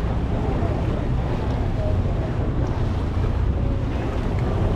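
Motorboat under way, its engine running with a steady low hum, mixed with wind on the microphone and water washing past the hull.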